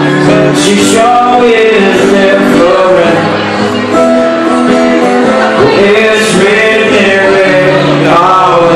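A man singing while strumming his own acoustic guitar, amplified live through a PA in a hall.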